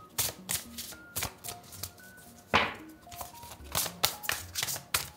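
An oracle card deck being shuffled by hand: a run of quick card snaps and slides, with one louder swish about two and a half seconds in. Soft background music with held notes plays underneath.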